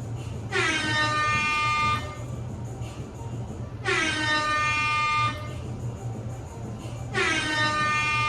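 Air horn blasting three times, each blast about a second and a half long and about three seconds apart, dipping slightly in pitch as it starts and then holding steady. It is the loud alarm sound used to prank a roommate.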